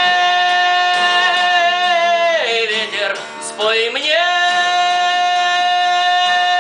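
Music: the end of a song, with a long held high note over guitar accompaniment. About halfway the note bends down in pitch and slides back up.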